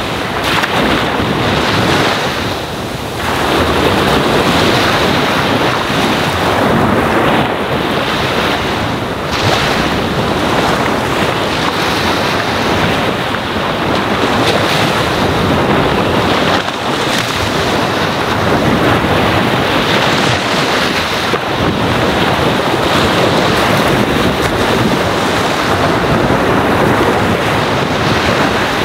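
Ocean waves washing onto a sandy shore: a continuous rush of surf that eases briefly about three seconds in.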